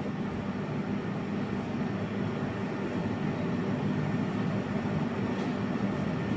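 Steady low background hum with an even hiss, unchanging and without distinct events.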